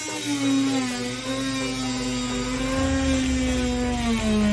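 Dremel oscillating multi-tool cutting into drywall: a steady buzzing whine whose pitch sags briefly near the end and then recovers.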